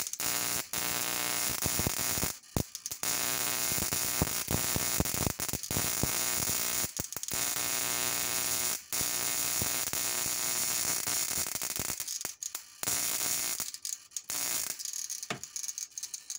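High-voltage spark from a car ignition coil, fed through a capacitor and a dimmer switch, arcing continuously across its gap with a loud buzzing crackle. It stutters and drops out briefly several times and stops near the end.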